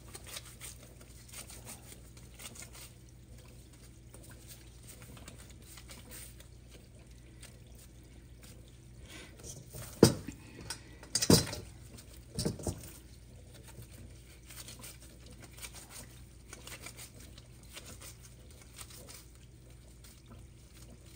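Dough cakes frying in a pan of vegetable oil: a faint, steady crackle and patter of bubbling oil. A few sharp knocks stand out about halfway through.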